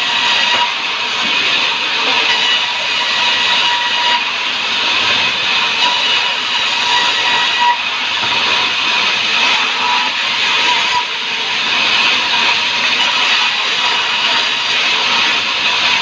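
Sawmill band saw running and ripping lightweight sengon boards: a steady, loud hissing cutting noise with a thin whine, dipping slightly as each board is fed and pulled back.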